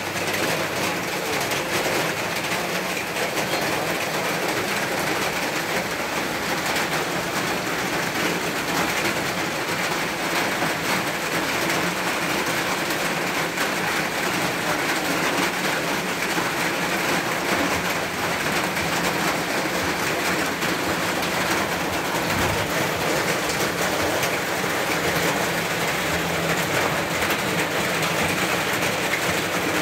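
Heavy rain falling steadily: a constant, even rush of rain that does not let up.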